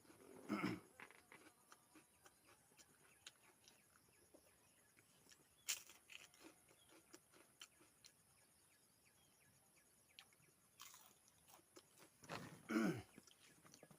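Close-up eating sounds: soft chewing and crunching with many small mouth clicks. A louder, longer mouth sound comes about half a second in and another near the end, with a sharp click about six seconds in.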